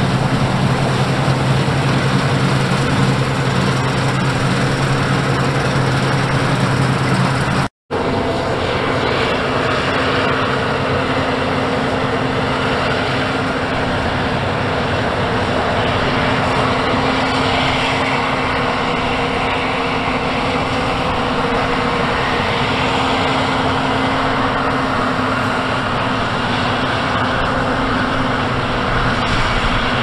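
Claas Lexion combine harvester running steadily while cutting and threshing standing grain: a continuous engine and machinery drone with a steady hum. There is a brief dropout about eight seconds in, after which the drone resumes with its hum at a higher pitch.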